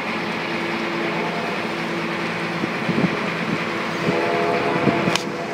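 Steady drone of the tour boat's engine, with water and wind noise. About four seconds in, a brief chord of higher held tones joins it, and there are a few small knocks in the middle and near the end.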